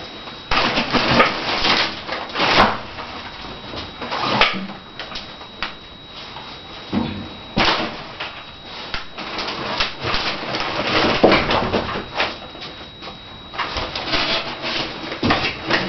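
Irregular scraping, rustling and knocking of packaging being handled and pulled away, with the loudest bursts about a second and a half in, around seven and a half seconds in, and near the end.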